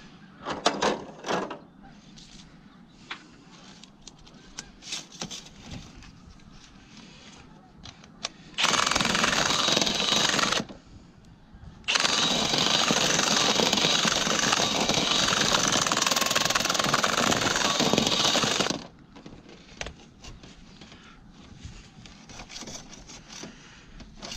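Dryer vent cleaning equipment running in the vent duct in two loud, steady bursts, a short one of about two seconds and then one of about seven seconds, with scattered knocks and rattles before them.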